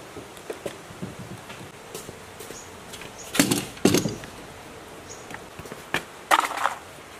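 Knocks and clatter from handling a hand-cranked coil winder and its winding former on a wooden table, over a faint steady hiss: two knocks close together midway and another near the end.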